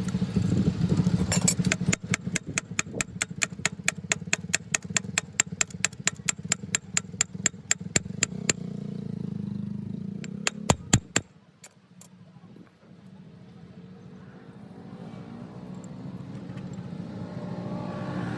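Sharp clicks in a steady rhythm, about four a second, for some seven seconds over a low steady hum. A few louder clicks follow about two-thirds of the way in, then the hum stops.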